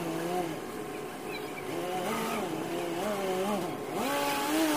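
An engine revving up and down in repeated short swells.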